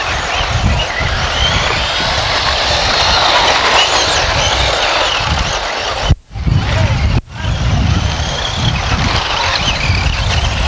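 Electric radio-controlled off-road buggies racing, their motors whining in high tones that rise and fall as they speed up and slow, over a low, uneven rumble. The sound drops out briefly twice, about six and seven seconds in.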